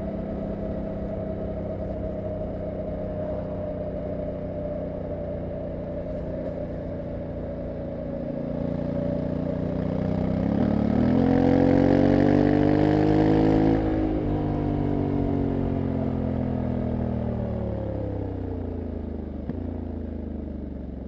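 Honda CRF1100L Africa Twin DCT's parallel-twin engine running at road speed. About halfway through the revs jump and it gets louder for a few seconds, then the revs fall away steadily as the bike slows.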